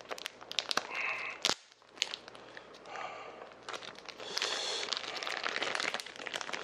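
A small plastic packet being crinkled and torn open in the hands: an uneven rustle broken by many short crackles.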